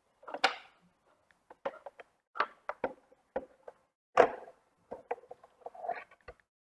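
Plastic housing of a VW Tiguan instrument cluster knocking and clattering against a tabletop as it is picked up and turned over. It makes a string of sharp knocks, the loudest about half a second and about four seconds in.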